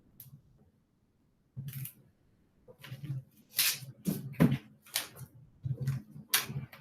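Dry nest material (leaves, twigs and moss) being handled and pulled apart by hand: a string of short, irregular rustles and crackles, sparse at first and coming thick and fast after about a second and a half.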